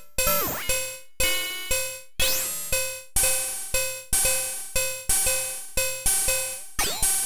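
DIY XORbell metallic noise-percussion module, built from CMOS 40106 square-wave oscillators mixed through 4070 XOR gates, playing cowbell and hi-hat-like hits. The clangy hits come about two to three a second in a repeating rhythm, each with a sharp attack and short decay, and now and then its pitches glide up or down.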